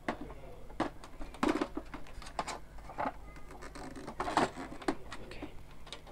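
Irregular plastic clicks and knocks from hands handling the casing and internals of an Epson ink-tank printer and lowering its scanner lid shut, the loudest knock about four and a half seconds in, over a low steady hum.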